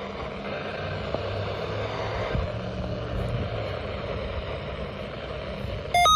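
Steady background rumble and hiss with a faint low hum. Near the end a loud electronic beeping begins, pulsing rapidly between two pitches.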